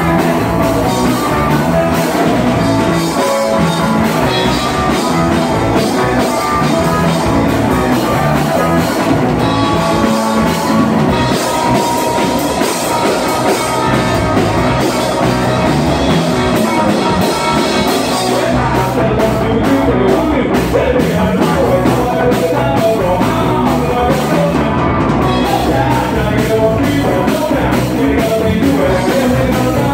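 Live rock band playing at a steady, loud level: electric guitar, electric bass and a drum kit.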